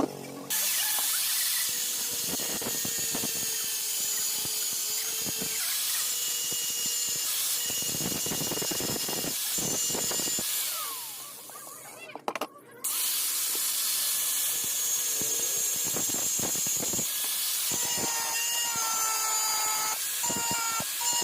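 Handheld power tool running steadily with a high hiss and a faint whine. It winds down about ten seconds in and starts up again about two seconds later.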